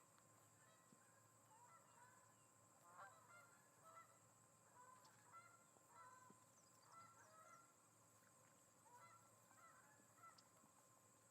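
Faint bird calls: many short, overlapping call notes repeated several times a second, over a steady faint hiss.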